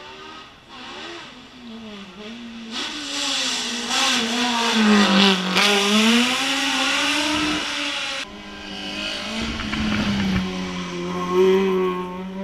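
Race car engine at full throttle, getting louder as it comes past. Its pitch drops and climbs again about halfway through, with a loud rush of tyre and engine noise from about three to eight seconds. After that a steadier, quieter engine note carries on.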